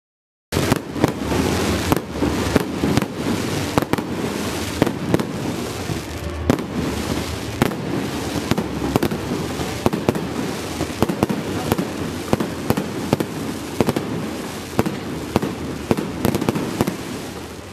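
Aerial fireworks going off in a dense barrage: a continuous din with many sharp bangs in quick succession, starting about half a second in.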